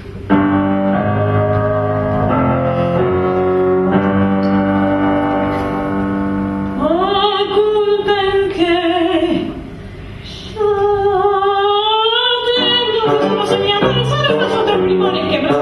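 Live music with piano accompaniment: held piano chords for the first six seconds or so, then a woman singing two long phrases with vibrato and rising glides, with a brief quieter gap between them.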